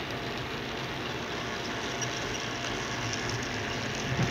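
HO-scale model diesel locomotive and its train running along the layout track: a steady whir and rumble of the small motor and wheels on rail, with a faint steady whine. A brief thump comes near the end.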